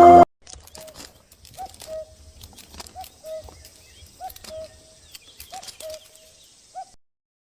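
A bird gives a repeated two-note call, a higher note followed by a slightly lower, longer one, about once every 1.3 seconds. A faint high insect hiss and scattered small clicks sit under the calls.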